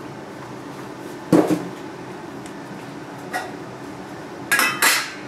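Hard plastic clatter as the halogen convection oven's white plastic base stand is handled and set down on a countertop. There is one knock about a second in, a faint tap, then two sharper clacks with a brief ring near the end.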